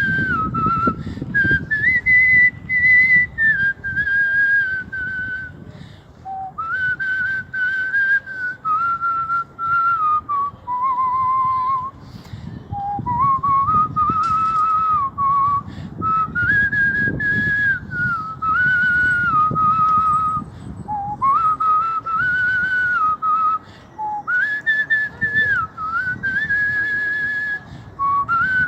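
A man whistling a melody: clear single notes that step and slide up and down in phrases of a few seconds, with short breaks between phrases.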